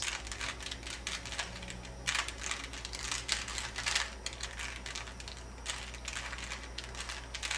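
A Rubik's Cube's plastic layers being twisted in quick succession: an irregular run of clicks and clatters as the final sequence of the solve swaps the last two edge pieces into place.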